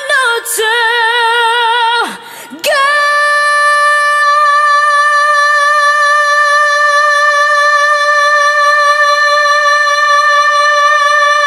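A woman's singing voice in a song, wavering with vibrato, then after a short break for breath about two seconds in, holding one long, steady high note for most of the rest.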